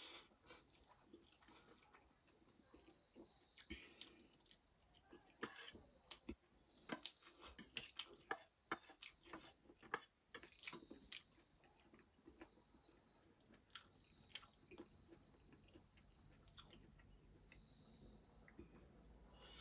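Eating sounds: a fork clinking and scraping on a stainless steel plate, with slurping and chewing of noodles and pork. The clicks come thickest between about five and eleven seconds in, over a steady high hiss.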